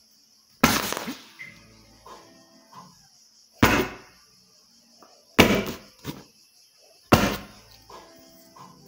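Four loud sharp thuds a couple of seconds apart: an inflated vinyl beach ball being struck hard in an attempt to burst it.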